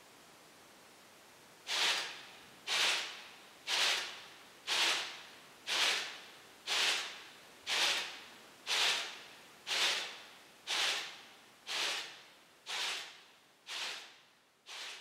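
Sixty clock hands on a panel stepping together in sync, once a second, starting about two seconds in: an even, rhythmic stroke each second that dies away within about half a second, growing quieter toward the end.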